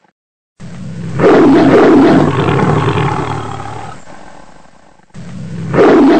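Tigers roaring and snarling as they fight: a long loud bout starting about a second in that slowly fades, then a second loud roar near the end.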